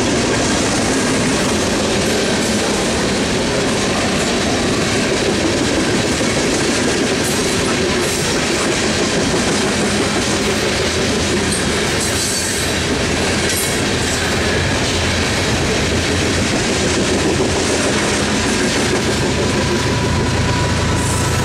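Coal train's hopper cars rolling past on the rails: a steady rumble with rhythmic wheel clatter over the rail joints, and a few brief high wheel squeals about halfway through. Near the end a low diesel engine hum builds as a mid-train GE ES44C4 locomotive draws near.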